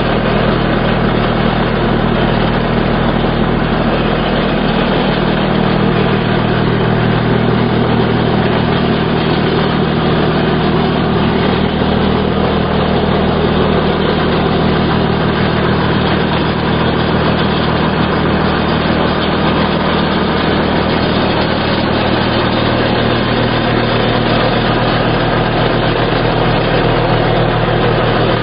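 Stihl HS45 gas hedge trimmer's small two-stroke engine running steadily at working speed while its blades cut through a shrub.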